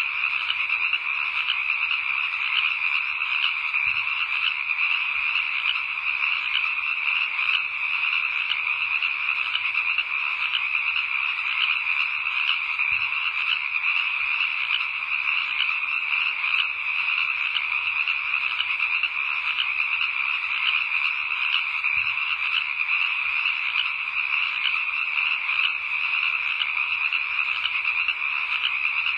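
Steady, dense chorus of calling night creatures, with no break or change.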